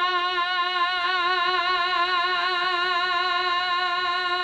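A male reciter holding one long sung note with a slight vibrato, drawing out the end of a line of an Urdu manqabat (devotional poem).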